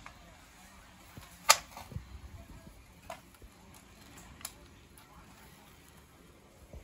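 A single sharp click about a second and a half in, then a few softer taps and clicks as a boxed toy's cardboard package is handled.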